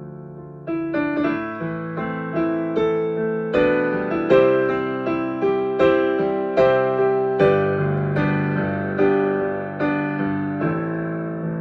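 Solo piano, improvised: a held chord fades, then from just under a second in, notes are struck at an unhurried pace of about two a second over sustained low bass notes.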